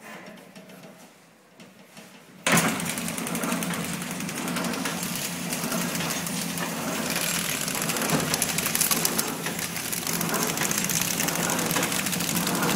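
Soap paper-wrapping packing machine running with a fast, even mechanical rattle. It starts abruptly about two and a half seconds in, after a quiet stretch.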